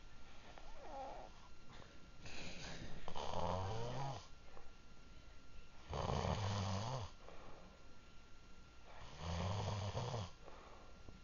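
A man snoring in his sleep: three loud snores about three seconds apart, with quieter breaths between them.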